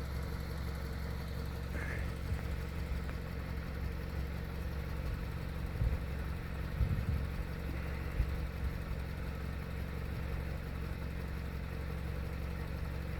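Vehicle engine idling steadily, a low even hum, with a few faint knocks partway through.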